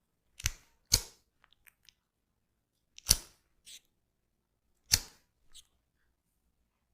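Sharp percussive hits from a head massage: two close together near the start, then single strong hits about two seconds apart, each followed by a softer one.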